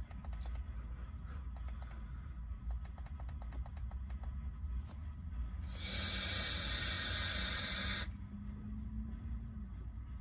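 Sub-ohm vaping on a Cloud Beast King tank: faint crackling ticks in the first few seconds, then a loud hiss of air lasting about two seconds as a big cloud is drawn through or blown out, over a steady low hum.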